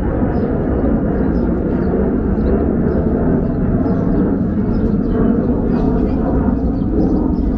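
Busy pedestrian street ambience: a crowd of voices mixed into a steady low rumble, with faint footsteps ticking through it.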